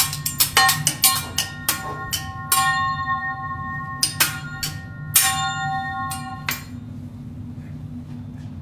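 Metal teppanyaki spatulas clanging against each other and the steel griddle in a rhythmic show routine: quick strikes at first, then a few slower hits that ring on like a bell, stopping about six and a half seconds in. A steady low hum runs underneath.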